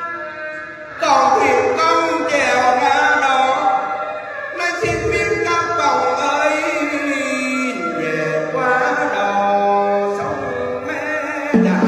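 Singing of a Huế funeral chant (hò đưa linh), with long wavering held notes over musical accompaniment.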